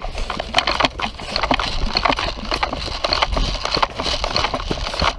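Footsteps moving quickly over rough ground, about two a second, with gear knocking and rattling and wind rumbling on the microphone.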